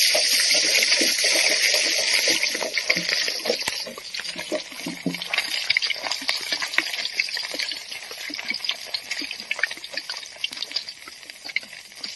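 Hot oil sizzling hard in a steel wok, a dense hiss that about four seconds in thins into irregular crackling and popping spatter as a ladle works liquid through the oil.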